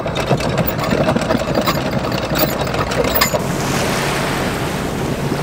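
Water hissing and splashing along a sailboat's hull as it motors through flat calm sea, with a steady low engine hum beneath. The splashing crackle gives way to a smoother rush about three seconds in.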